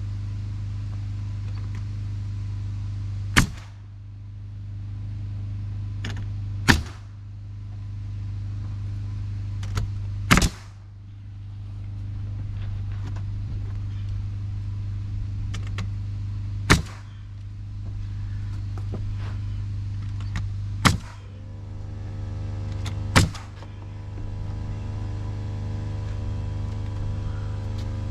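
Six sharp single shots from a nail gun fastening rough-sawn siding boards, each several seconds apart, over a steady low machine hum. About three quarters of the way through, the hum takes on a stronger pitched tone.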